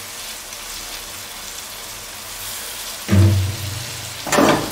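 Curry leaves, green chilies, ginger and garlic sizzling steadily in hot oil in a steel pan. About three seconds in there is a low thump, and near the end a sharp knock.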